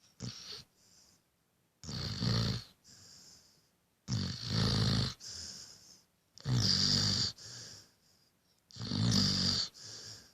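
A sleeping Rottweiler-beagle mix dog snoring in a slow, regular rhythm: four loud snores, about one every two to two and a half seconds, each followed by a shorter, softer breath.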